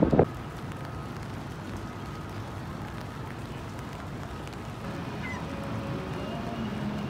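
Steady outdoor city background noise, a low even rumble, after a brief loud burst at the very start.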